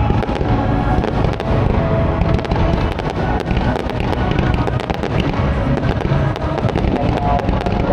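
Fireworks display going off continuously: many sharp bangs and crackles over a dense low rumble of bursts, with music playing underneath.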